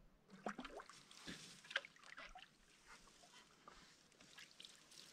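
Faint trickling and dripping of water from canoe paddling: small gurgles and drips off the paddle blade. There is one sharper click just under two seconds in.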